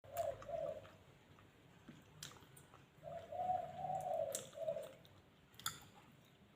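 A dove cooing softly: a short coo near the start and a longer, drawn-out coo about three seconds in, with a few light clicks in between.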